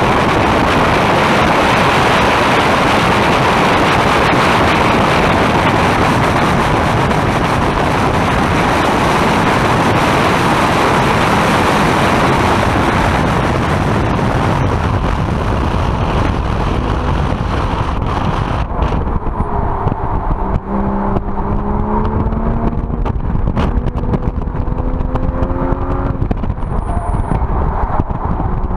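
Track car at speed heard from inside the cabin: heavy wind and road noise fills the first two-thirds, then eases after about eighteen seconds and the engine note comes through, climbing in pitch as the car accelerates, dropping once near the end and climbing again.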